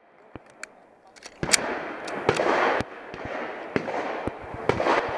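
Irregular strings of handgun shots from other shooters at a USPSA practical shooting match: sharp cracks, several close together in quick bursts, over a steady background noise.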